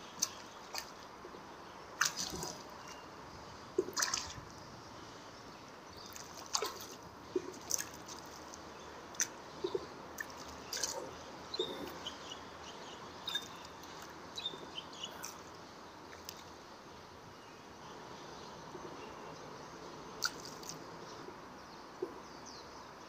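River water dripping and plopping at the rocky edge: irregular small drips and splashes, a few every second or two, over a steady faint hiss.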